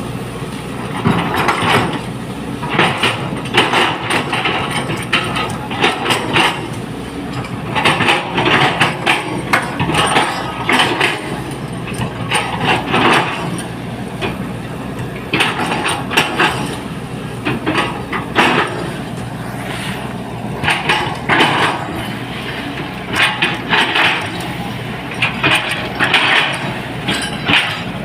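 Excavator's diesel engine running steadily under load, with repeated short bursts of scraping and knocking every second or two as the machine works.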